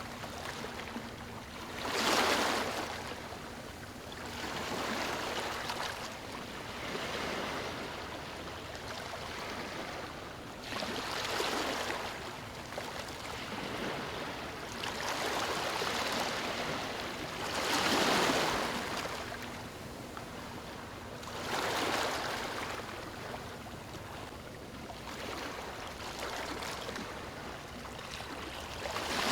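Small waves washing onto a beach, the surf rising and falling in swells every few seconds, with the loudest breaks about 2 seconds in and about 18 seconds in.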